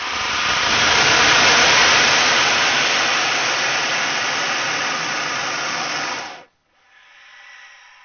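Cobra hiss sound effect: one long, loud hiss that cuts off sharply after about six seconds, followed near the end by a fainter sound of several steady tones.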